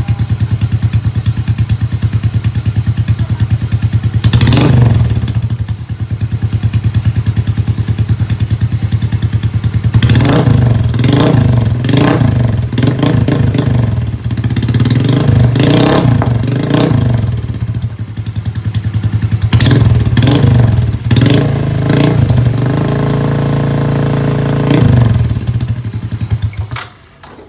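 Yamaha Mio i 125 scooter's single-cylinder engine running loud through an aftermarket Vmax screen-type exhaust pipe, idling and revved in repeated quick blips: once about four seconds in, a run of blips from about ten to seventeen seconds, more around twenty and twenty-five seconds. The engine cuts off near the end.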